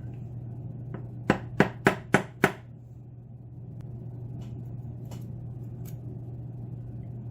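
Five sharp knocks in quick succession, about three a second, as a small hard object is rapped against a workbench, followed by a few faint clicks.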